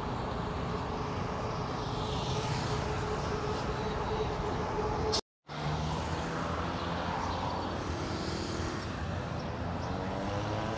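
Road traffic on a busy city street: cars and motorcycles running and passing in a steady din. The sound drops out completely for a moment about five seconds in, and near the end an engine's pitch rises as a vehicle accelerates.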